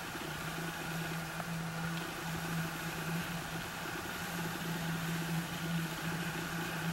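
Schionning G-Force 1500 sailing catamaran underway at about 18 knots: a steady low hum over an even rush of water and hull noise.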